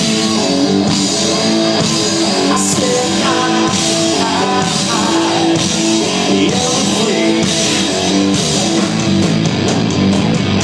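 Live rock band playing loud, with electric guitar and drum kit keeping a steady beat.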